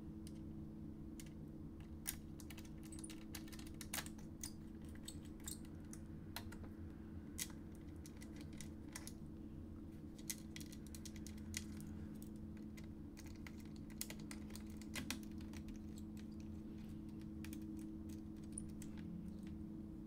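Small screwdriver driving screws back into a Samsung Series 3 laptop's plastic bottom case: scattered faint clicks and ticks of the bit and screws against the plastic, over a steady low hum.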